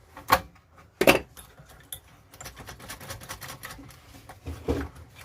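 Small clicks and clinking knocks of hard objects being handled, with two sharper knocks in the first second, a run of light ticks in the middle and another knock near the end.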